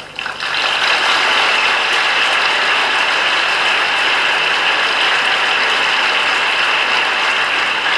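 Large audience applauding, a dense, steady clapping that starts about half a second in.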